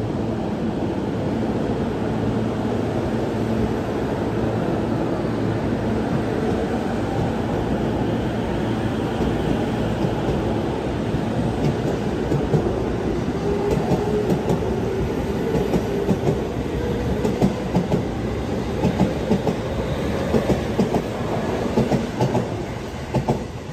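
E231 series 500 electric commuter train pulling out of a station, with its motor whine rising in pitch as it gathers speed. From about halfway through, the passing cars' wheels clack sharply over the rail joints.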